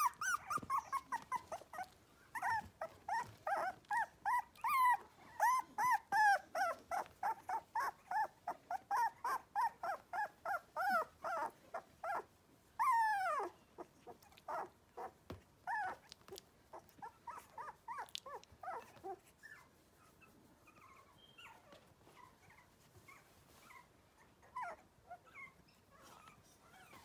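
Four-week-old toy Cavoodle puppies crying in short, high-pitched cries about twice a second. One longer cry falls in pitch about halfway through, and the cries thin out and grow fainter in the last third.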